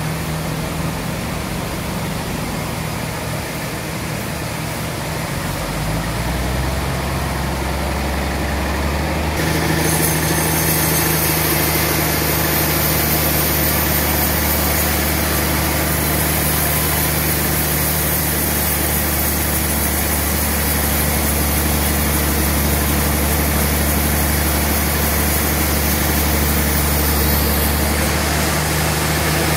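Band sawmill machinery running steadily with a low, even engine hum; about ten seconds in it grows louder and a high whine joins in.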